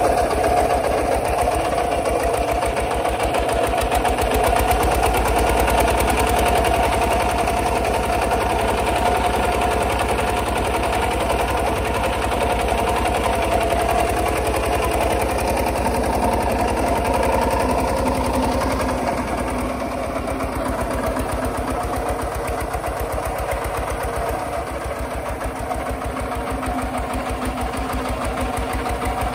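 Kubota walking tractor's single-cylinder diesel engine running under load as it pulls a plough through dry soil, a steady fast chug that eases off slightly about two-thirds of the way through.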